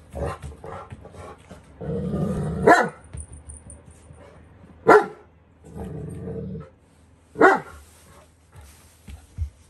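A Newfoundland dog growling and barking in rough play. There are three loud single barks about two seconds apart, with low, rasping growls leading into the first and the third.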